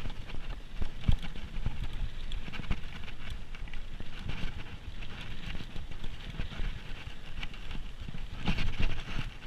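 Downhill mountain bike ridden over a rough trail, heard through a GoPro action camera: an irregular, constant rattle of knocks and clatter over tyre and wind noise, with a louder burst of knocks near the end.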